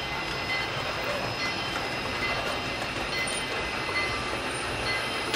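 Sound-equipped On3 scale model steam locomotive running along the layout: a steady run of rolling and running noise with a few faint steady tones above it.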